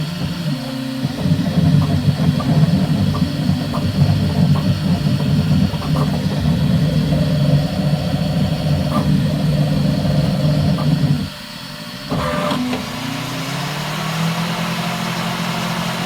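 Bambu Lab X1 Carbon 3D printer laying down a first layer: its motors make a busy, shifting buzz and whir as the print head moves, with fans running. About eleven seconds in the motor noise briefly drops away, then comes back as a steadier hum with a short rising whine.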